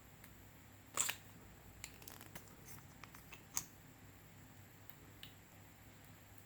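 Clear slime being worked by hand, giving scattered sticky clicks and small pops: a crackly one about a second in, a short cluster around two seconds, a sharp pop around three and a half seconds.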